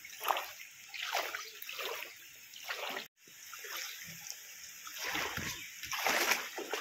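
Footsteps wading through shallow rain floodwater on a road, splashing at a step about every second, with a momentary break about halfway.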